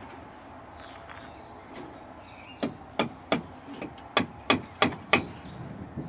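Hammer blows on the wooden formwork of a lintel set on a concrete-block wall: about eight sharp strikes, roughly three a second, starting a little over two seconds in.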